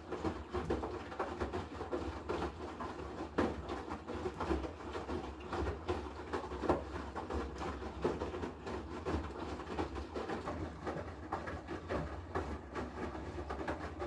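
Haier I-Pro Series 7 front-loading washing machine tumbling a wet load in its main wash: water sloshing and laundry dropping in the drum in irregular splashes and soft thuds, over a steady low hum.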